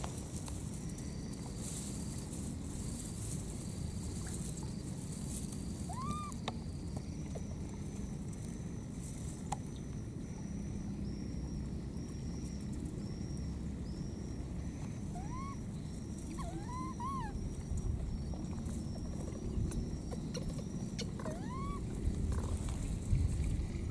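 Baby monkey giving about five short calls, each rising then falling in pitch, spread a few seconds apart. A steady high chirring and a low rumble run underneath.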